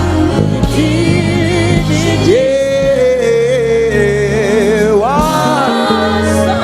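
Live gospel worship music: a lead singer holds long notes with vibrato and runs over a band with a steady bass line.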